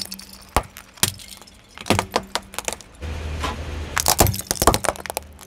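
Hard plastic toys cracking and snapping under a slowly rolling car tyre: clusters of sharp cracks with small pieces clattering on asphalt. A low, steady engine hum comes in about halfway through.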